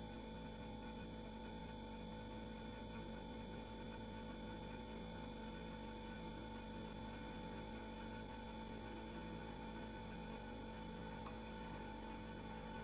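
Refrigerator running with a steady, unchanging hum made of several constant tones.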